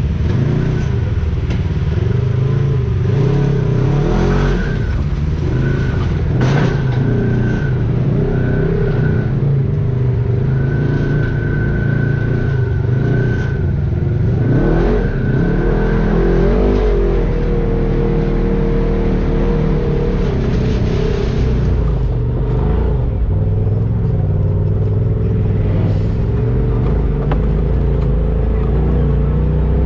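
Off-road vehicle engine running on the trail, its pitch rising and falling again and again as it revs, with a thin high whine coming and going through the first half.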